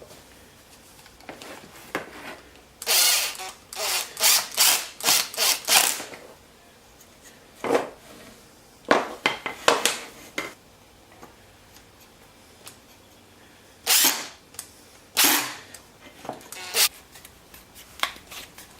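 Hand or tool work on small Baltic birch pieces: groups of short rasping strokes on wood, several in quick succession, with pauses between the groups.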